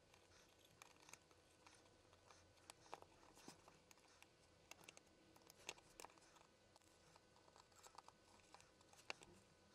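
Near silence, broken by faint, scattered small clicks and taps of a soldering iron tip and screwdriver working the SATA connector on a hard-drive circuit board while it is desoldered.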